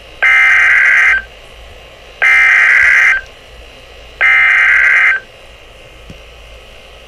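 Emergency Alert System SAME header tones: three bursts of digital data noise, each about a second long and a second apart. They mark the start of a new broadcast alert message.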